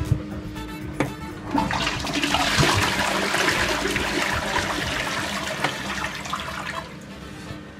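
A toilet flushing: a click about a second in, then the rush of water swirling down the bowl, which builds, holds, and dies away near the end.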